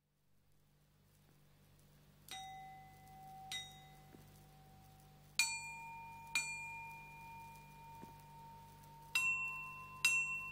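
Handmade copper flute-chime, its tubes drilled so the air inside resonates with the metal and tuned to the Chinese pentatonic Yu scale, struck with a wooden striker. Six strikes come in three pairs, each pair on a higher tube, and every note rings on long after the strike.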